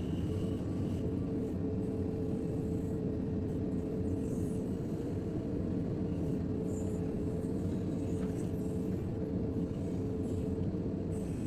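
JCB 3DX backhoe loader's diesel engine running steadily under working load.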